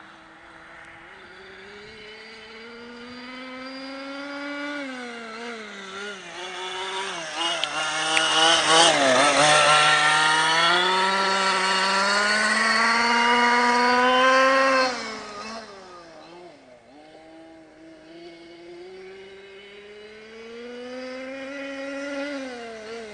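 Losi 5ive-T RC truck's small two-stroke petrol engine run hard, its pitch rising and falling with the throttle as the truck accelerates and slows through turns. It is loudest as the truck runs close in the middle, drops off suddenly about two-thirds of the way through, then climbs again near the end.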